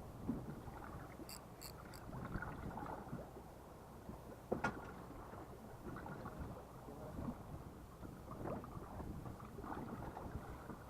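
Water sloshing and lapping against the hull of a small fishing boat, with a single sharp knock about four and a half seconds in.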